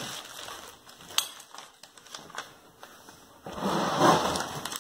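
Plastic-wrapped MRE pouches being handled and set down on a wooden table: scattered crinkles and small clicks, with a louder rustle of plastic packaging near the end.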